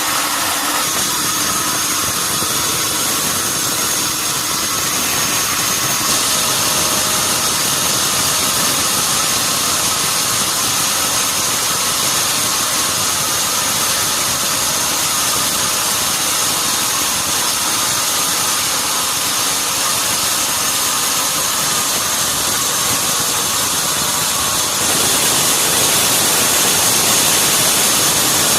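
Sawmill saw cutting a red mahogany log: steady machine noise with a high hiss that grows louder about six seconds in and again near the end.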